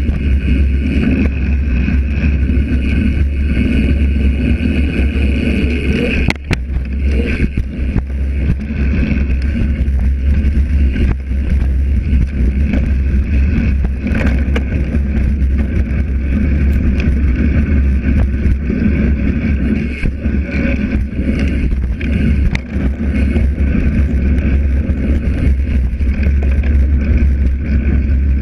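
Mountain bike rolling fast over a dirt trail, heard from a camera mounted on the bike: a loud, steady rumble of the tyres and the rattling frame, with wind buffeting the microphone. A sharp knock about six seconds in.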